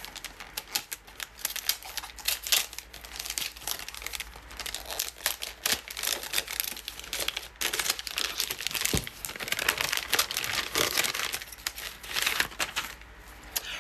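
Gift wrapping paper being torn and crumpled as a present is unwrapped: an irregular run of crinkling and rustling, with one sharper tap about nine seconds in.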